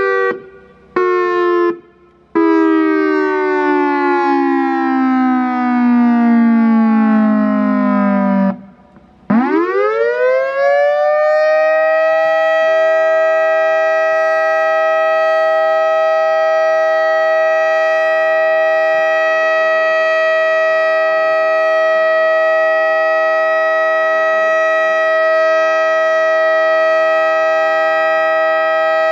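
EOWS 612 electronic outdoor warning siren, run from a custom controller, sounding its signals. A few short blasts come first, then one long tone that falls slowly in pitch. After a brief break it rises over a few seconds and levels off into a steady tone, with lower tones added, that holds to the end.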